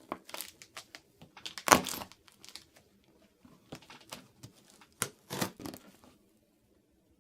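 Scissors cutting into a cardboard shipping box, with irregular crinkling, tearing snips and rustles. The loudest tear comes a little under two seconds in, and the cutting stops about six seconds in.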